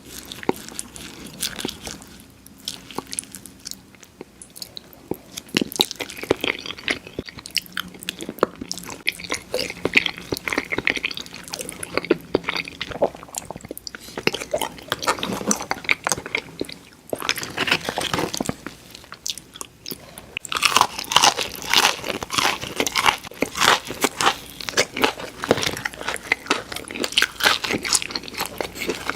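Close-miked eating sounds: a person biting and chewing crunchy fried fast food, with dense wet crackles and crunches that grow louder and busier about two-thirds of the way through.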